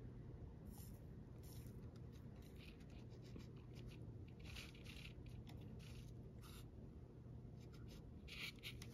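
Near silence: a low steady hum, with a few faint scrapes and ticks from a soldering iron and needle-nose pliers working a motor wire off a drone's ESC board as the joint is desoldered.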